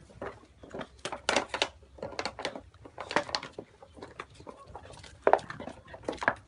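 Rhodesian Ridgeback puppies moving about: a scatter of brief, irregular little noises and squeaks, a few louder ones about a second in, around three seconds in and past five seconds in.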